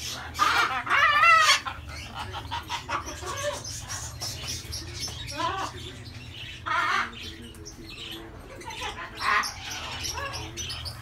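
Parrots squawking and chattering, with a loud wavering squawk about a second in and shorter calls and chirps scattered through.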